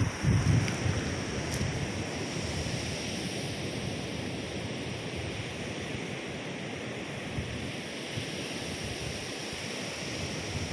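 Surf breaking on the reef edge, heard as a steady wash, with wind gusting on the microphone in the first second.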